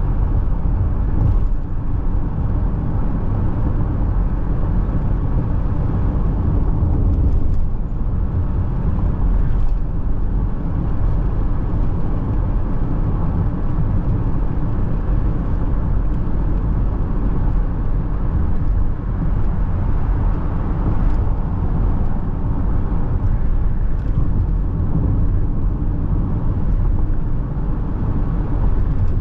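Steady engine and tyre noise of a car driving, heard from inside the cabin: a constant low rumble with a faint hum.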